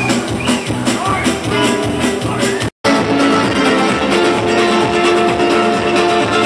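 Live band music: strummed acoustic guitars with keyboard on a steady beat. It drops out for a split second about halfway through, then carries on.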